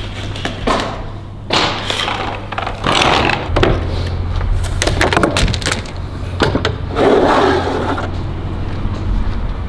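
Interlocking plastic garage floor tiles being worked and cut with a lever-arm tile cutter: a string of sharp cracks, clicks and knocks with several short scraping bursts, over a low steady hum.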